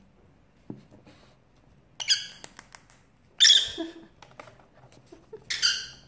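Pet lovebird giving three short, shrill squawks, about two, three and a half and five and a half seconds in, the middle one loudest, with a few faint clicks in between.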